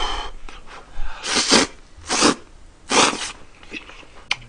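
Hot ramen noodles being blown on and slurped from chopsticks, in three short, sharp, noisy pulls, followed by a few faint clicks.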